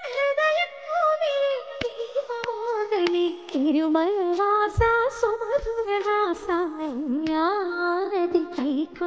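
A single voice singing a slow Carnatic-style melody, with the pitch sliding and wavering on each held note and dropping lower about three seconds in.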